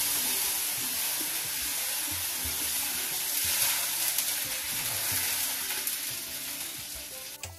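Steady sizzling of food frying in a hot pan, which cuts off suddenly near the end.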